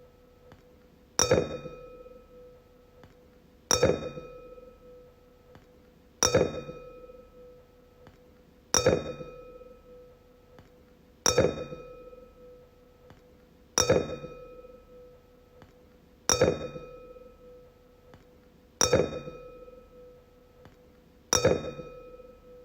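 A wine glass struck again and again, nine times about two and a half seconds apart, each strike ringing out on a clear, steady pitch with bright overtones and dying away before the next.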